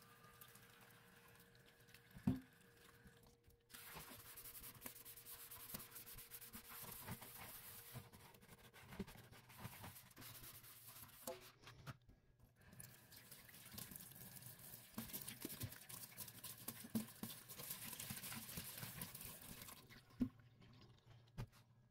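Faint wet sponge sounds in a stainless steel sink: soapy foam crackling and squelching in a dense run of small pops as the sponge is squeezed and wiped. There is a soft knock about two seconds in and another near the end.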